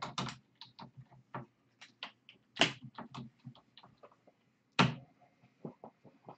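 Irregular clicks and knocks of objects being handled off-camera, with two louder thumps about two and a half and five seconds in.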